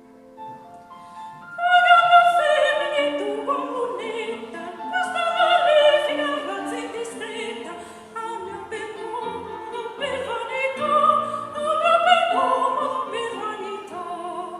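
Operatic singing with instrumental accompaniment: a classical voice with vibrato over sustained notes. It starts softly and swells about two seconds in.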